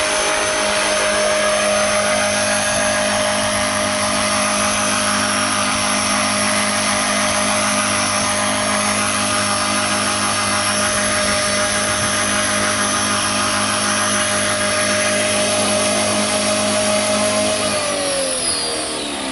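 Electric T-Rex 450 RC helicopter in a scale MD500 body, running on a 3-cell LiPo. Its brushless motor, gears and rotor give a steady whine and whoosh. Near the end the pitch falls away as the rotor spools down.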